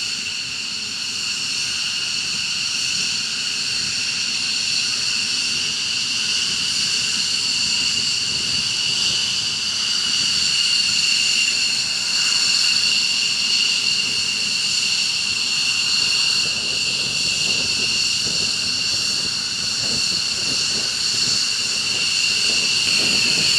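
Jet engine running with a steady high-pitched whine of several tones over a rushing noise, holding at a near-constant level.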